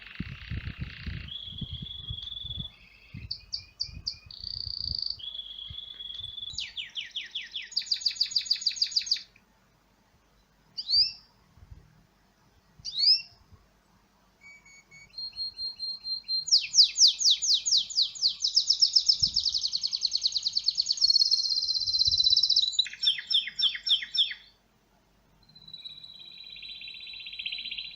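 Recorded birdsong played back on a mobile phone: a run of varied bird songs, with clear whistled notes, fast rattling trills and two quick downslurred calls, broken by sudden short silences.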